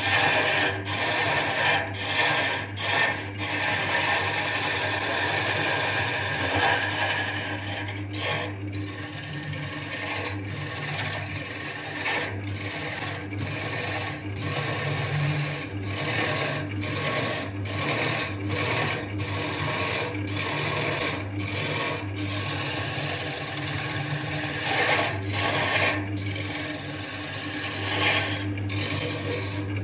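A wood lathe running with a steady motor hum while a tool works the spinning wood, making a continuous scraping, rasping sound. The scraping drops out briefly many times as the tool lifts off the wood.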